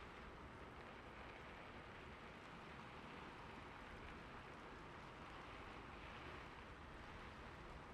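Faint, steady wash of falling water with a fine, even patter.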